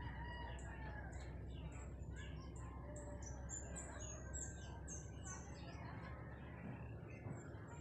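Birds chirping in the background: many short, high chirps, several of them falling in pitch.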